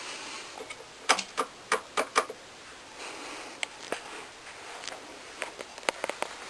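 Irregular sharp clicks and ticks over a faint steady background: a quick run of about six loud clicks about a second in, then scattered single clicks later.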